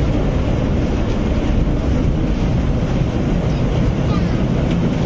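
A 1914 historic tram running along street rails, heard from inside its wooden cab: a steady low rumble.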